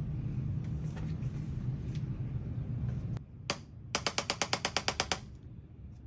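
A low steady hum, then a single sharp tap followed by a fast, even train of mechanical taps, about a dozen a second for just over a second.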